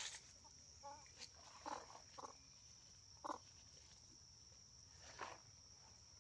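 Near silence: a faint steady high-pitched whine runs through, with a few soft scattered ticks and rustles.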